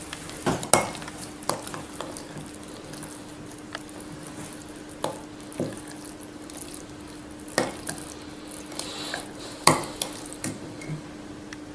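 A spoon stirring oats and yogurt in a glass jar, with scattered sharp clinks as the spoon knocks against the glass.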